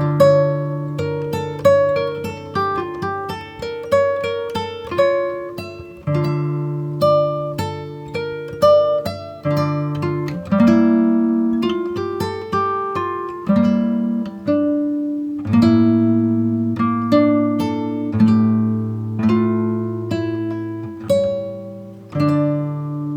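Background music of plucked guitar: a melody of short notes that ring and fade, over longer low bass notes.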